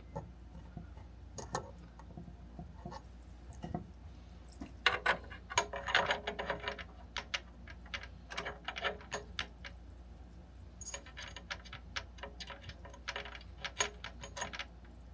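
Scattered light clicks and metallic clinks of small parts and tools being handled on a miter saw's blade housing, coming in short clusters, over a faint low hum.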